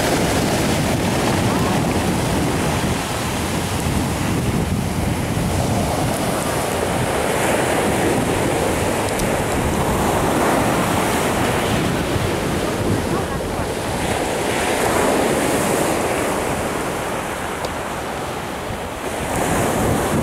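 Sea surf breaking and washing up a pebble beach, swelling and easing every few seconds, with wind buffeting the microphone.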